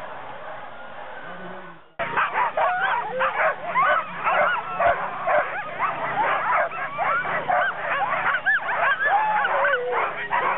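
A team of harnessed sled dogs barking and yipping excitedly all at once, many short high yelps rising and falling in pitch and overlapping. This follows a steady background noise that cuts off about two seconds in.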